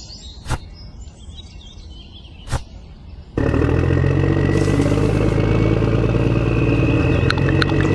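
Two sharp clicks over a low background, then a motor starts running abruptly a little over three seconds in with a loud steady hum, with a few light ticks near the end.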